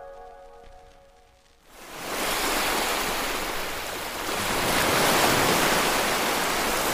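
Sea waves washing in against rocks on a shingle beach: a steady rushing that rises about two seconds in, after a brief lull, and swells a little past the middle.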